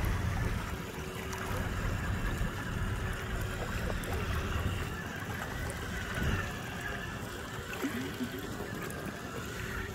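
Outboard motor running steadily at low trolling speed, with water washing past the boat.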